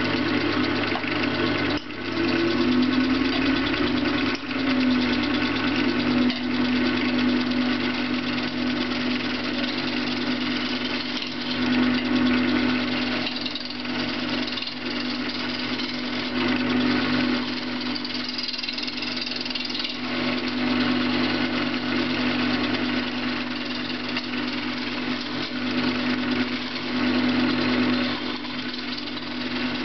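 Wood lathe running with a steady hum while a gouge cuts a spinning piece of mock orange wood, roughing it down to a cylinder. The rough noise of the cut rises and falls as the tool moves along the wood.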